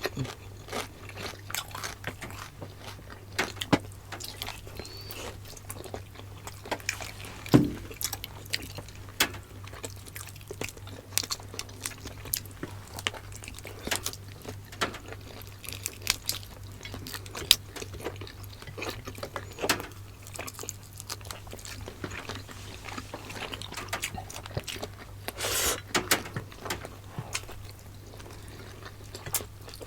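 Close-up mukbang eating: chewing and biting on pork adobo, vegetables and rice, with many short wet clicks and smacks scattered throughout, over a steady low hum.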